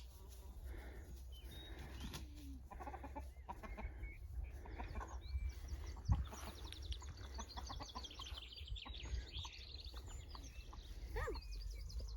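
A flock of chickens clucking softly as they feed on scattered corn, with a run of quick high chirps about six to nine seconds in.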